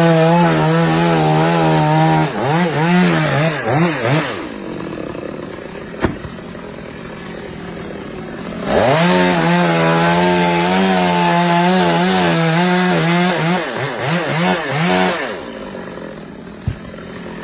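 Chainsaw run at full throttle in two long bursts, about four and six seconds long, cutting wood, dropping back to idle between them. The engine pitch wavers and dips as each burst ends, and there is a sharp click during the idle gap.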